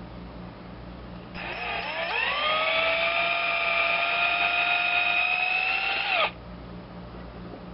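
Small rotary power tool spinning up about a second in, running at a steady high whine, then switching off with a quick drop in pitch, as a small drill bit bores old copper wire out of a kill-switch contact.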